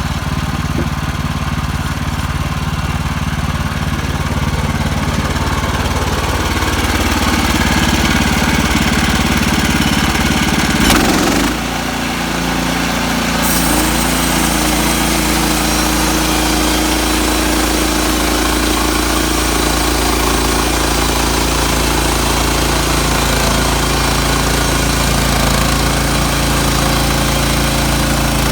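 Petrol engine of a Woodland Mills HM130 Max portable bandsaw mill running steadily under load, its note shifting about six seconds in, with a brief loud knock near the middle. From about halfway through, a bright hiss joins the engine as the band blade cuts through a pine log.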